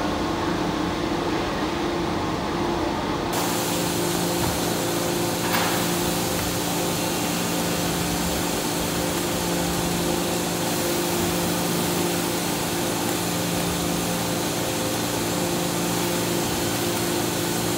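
Hydraulic forging press and its power unit running with a steady hum, joined from about three seconds in by a steady hiss of water spray and steam over the hot forging in the die. One brief sharp sound a little after five seconds.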